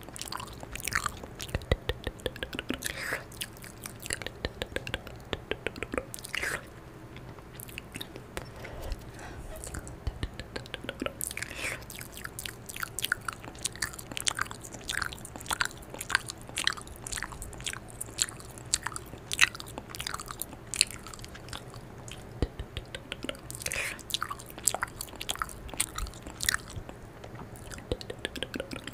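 Close-up ASMR mouth sounds right at the microphone: a dense, irregular run of wet lip smacks and tongue clicks, like mimed eating and chewing.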